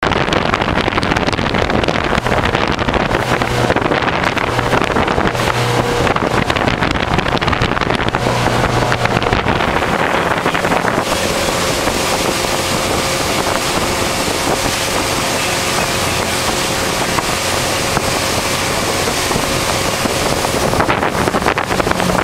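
Motorboat running steadily under way at speed: engine drone mixed with rushing water and wind buffeting the microphone. About halfway through the rush turns brighter and hissier.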